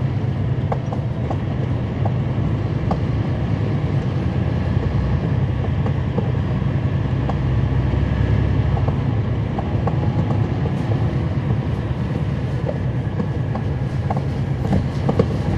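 Interior sound of a NABI 416.15 transit bus under way: its Cummins ISL9 straight-six diesel runs with a steady low rumble, over frequent small rattles and clicks from the body and fittings.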